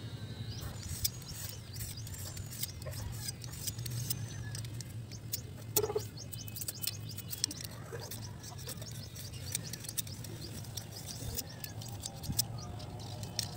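A thin bamboo strip being shaved and scraped with a small blade, giving scattered short scraping clicks, while birds chirp in the background.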